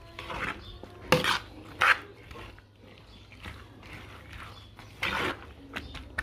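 Metal spoon scraping and clinking against a large steel bowl while tossing chana chaat, with a few sharp knocks of spoon on metal.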